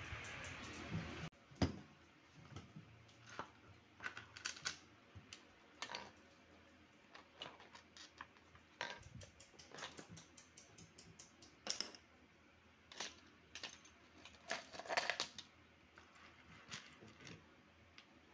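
Scattered light clicks and taps of small metal tools and parts as a watch is worked on, irregular and sometimes in quick clusters. A noisy sound in the first second cuts off sharply.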